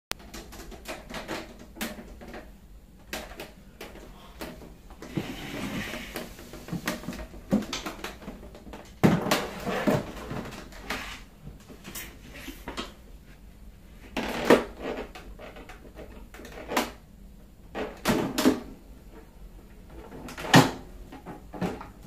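Irregular knocks, thumps and scrapes as a Royal Safari II portable typewriter in its carrying case is handled, set down on a table and its cover lifted off, with a short stretch of rustling about five seconds in.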